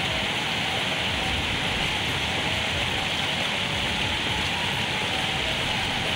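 Water rushing steadily over a concrete weir and tumbling down its stepped spillway.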